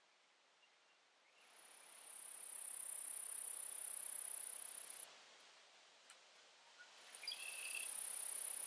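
High-pitched insect buzz that swells in, holds and stops abruptly, twice.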